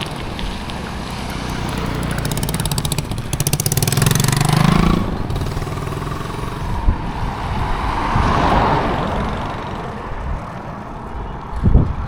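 Highway traffic passing close by. One vehicle's engine rises in pitch and level to a peak about four to five seconds in, then falls away as it passes. A second vehicle's rush of tyre noise swells and fades a few seconds later, and there are a couple of sharp knocks near the end.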